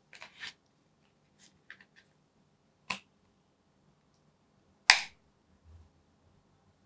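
Clear plastic phone case being pressed onto an iPhone 13 mini: a few soft clicks and taps, then two sharp snaps about two seconds apart, the second the loudest.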